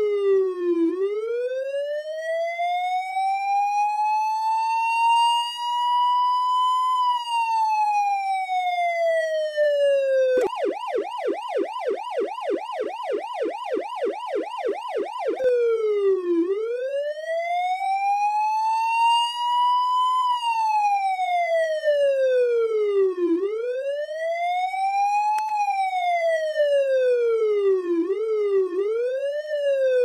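Smith & Wesson Magnum III police siren sounding a slow wail that rises and falls. About ten seconds in it switches to a fast yelp of about four cycles a second for five seconds, then goes back to the slow wail, with shorter, quicker sweeps in the last few seconds.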